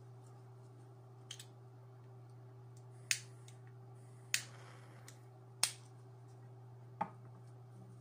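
Four sharp clicks, about a second and a quarter apart, from a small object being worked in the hands, the last one weaker. A steady low electrical hum runs underneath.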